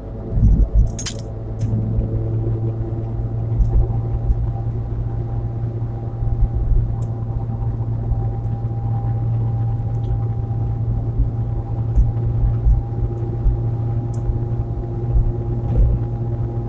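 Steady in-cabin drone of a 2016 Nissan Versa cruising at highway speed: engine and road noise as one low hum with a few held tones above it. A short metallic clink or rattle about a second in.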